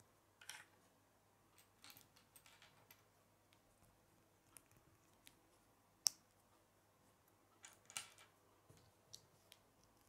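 Small plastic Lego pieces being handled and snapped together by hand: faint scattered clicks, with one sharp snap about six seconds in.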